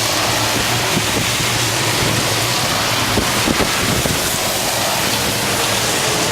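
Typhoon wind and rain: a steady, even rushing hiss with no let-up.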